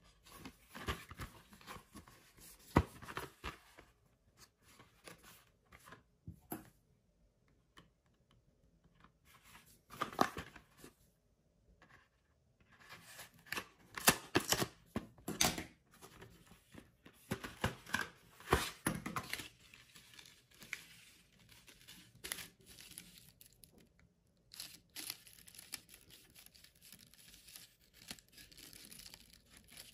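Cardboard retail packaging being cut and torn open, in irregular bursts of scraping and tearing, the loudest in the first two-thirds. Softer crinkling of a clear plastic blister tray follows near the end.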